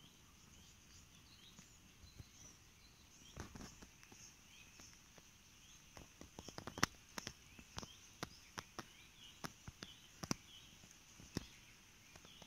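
Faint, distant birdsong: light wavering chirps throughout. From about halfway in, a run of irregular sharp clicks and taps, several a second.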